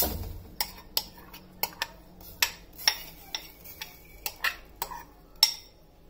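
A metal spoon scraping coconut paste out of a bowl into a steel saucepan, making a dozen or so sharp, irregular clicks and taps against the bowl and pan rim.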